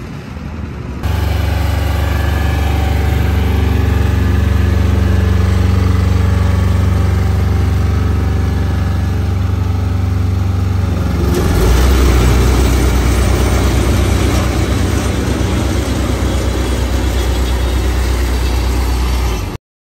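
Engine of a tandem double-drum asphalt roller running steadily as it rolls over a fresh asphalt patch. About eleven seconds in, the sound turns to a heavier, rougher rumble, and it cuts off suddenly near the end.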